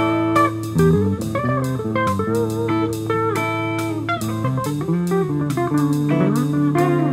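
Background music: plucked guitar over a steady drum beat.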